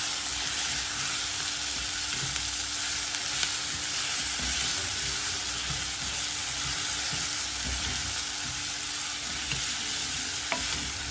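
Diced potatoes and onions sizzling steadily in oil in an aluminium pot, stirred with a wooden spoon that scrapes and knocks against the pan.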